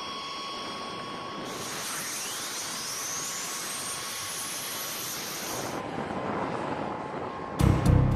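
B-52 Stratofortress's TF33 turbofan engines spooling up in a cartridge start: a sudden rush of hiss, then a whine rising steeply in pitch, which stops abruptly about six seconds in. Music with a heavy beat starts near the end.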